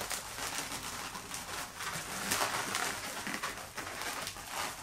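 Inflated 260 latex twisting-balloon bubbles rubbing and squeaking against each other in an irregular run as two bubbles are twisted around each other to swap places and lock together.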